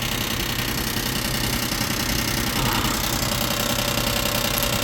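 Chevy Silverado pickup engine idling steadily, with the noise that several shops took for internal engine damage; the mechanic traces it to a broken plastic piece by the starter.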